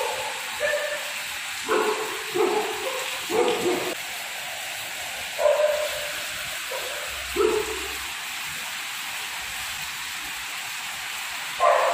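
A dog whining and yipping in short high calls, several in a row, then a pause and a few more. A steady hiss runs underneath.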